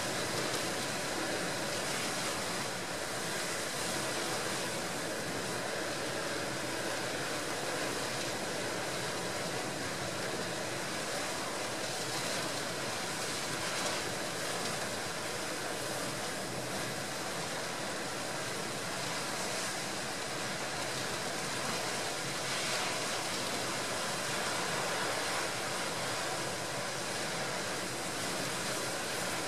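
Storm surf and gale wind on the shore, heard as a steady, even roar with no separate wave crashes standing out.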